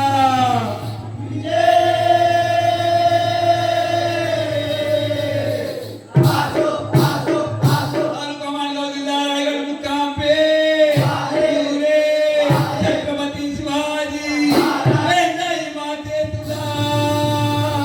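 Male voices singing a Jakhadi folk song in long, held, wavering notes, with a chorus joining. Sharp rhythmic beats come in about six seconds in and run under the singing.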